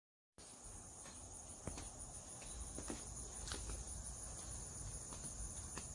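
Steady high-pitched chorus of insects, with a few soft footsteps and handling noise of someone walking.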